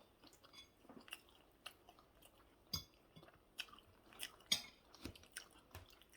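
Faint mouth sounds of someone chewing fried plantain and egg: irregular small wet clicks and smacks, with a louder one about four and a half seconds in.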